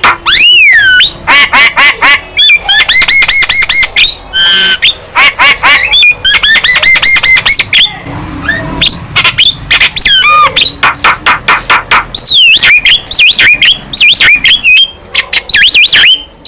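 Young Javan myna in full song, loud and without pause: rapid clicking chatter, harsh squawks and whistled glides that rise and fall.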